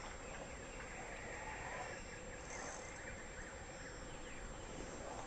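Outdoor pond ambience: a steady low hiss with a few short, faint animal calls scattered through it.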